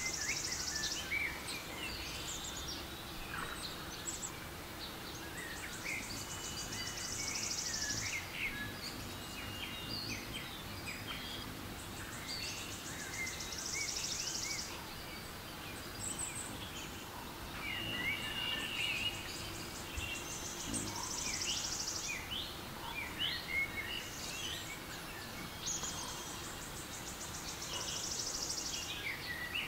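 Recorded forest ambience with birdsong from a relaxation-sounds app: many short chirps and whistles over a steady background hush. A high, rapid trill comes in for a second or two about every six seconds.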